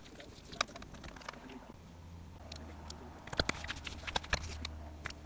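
Light clicks and taps of small tools and plastic laptop parts being handled, several sharp ones about three and a half seconds in, over a faint low hum in the second half.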